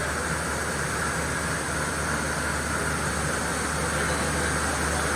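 Mori Seiki NL3000 CNC lathe spindle spinning at about 2,000 RPM, a steady mechanical hum and whir.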